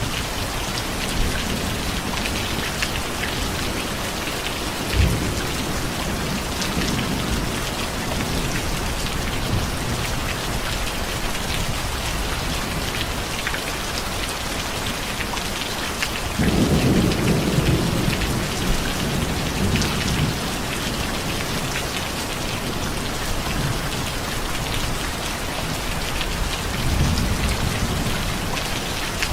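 Steady heavy rain with rolling thunder. A low rumble of thunder breaks in suddenly about halfway through and swells for a few seconds, with fainter rumbles early and near the end.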